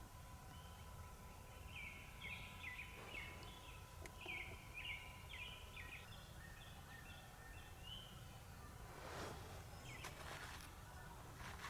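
Faint bird calls: a run of short, high chirping notes in groups over several seconds, then two brief bursts of noise near the end.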